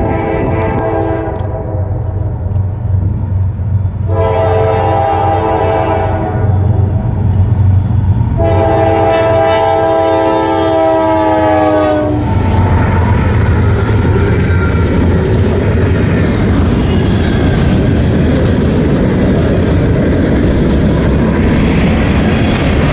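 Norfolk Southern diesel freight locomotives blowing their multi-note horn at a road crossing: one blast ending about a second in, another about 4 to 6 seconds in, and a long one from about 8 to 12 seconds whose pitch drops as the lead engine passes. After that comes the steady rumble of the locomotives and freight cars rolling over the rails, with clacking wheels.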